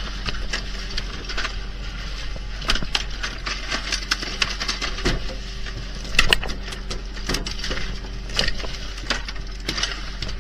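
Irregular knocks and thuds on a fishing boat's deck, some sharp and loud, over a steady low machine hum.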